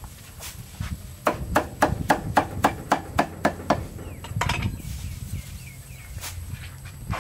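Knife chopping on a wooden chopping block: about ten quick strikes at roughly four a second, then a brief clatter.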